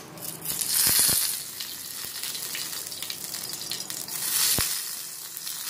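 Hot oil in a frying pan sizzling and spitting as curry leaves hit it alongside whole dried red chillies in a tadka (tempering). The sizzle swells about a second in and again about four and a half seconds in, with a few sharp pops.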